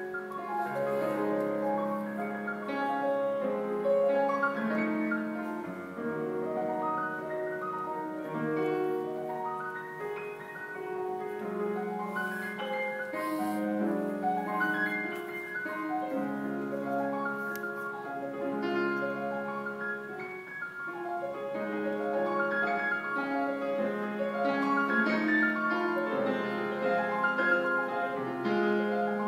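Yamaha grand piano played solo, a continuous flow of held chords and melody notes.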